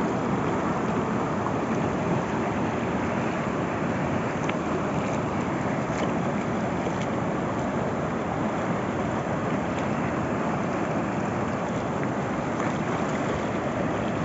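River water rushing, a steady full roar with no break.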